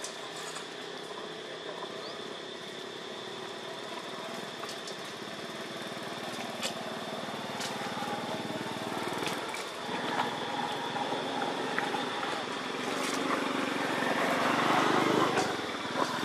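A motor engine running steadily, getting louder in the last few seconds, with a few faint clicks.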